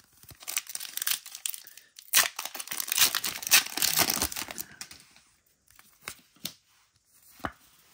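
A foil Pokémon TCG booster pack wrapper being torn open and crinkled: a dense crackle, loudest in the middle, thinning out to a few light clicks near the end.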